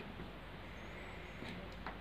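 Quiet room tone, the mixer grinder switched off, with a couple of faint clicks near the end as hands handle the plastic lid of the mixer jar.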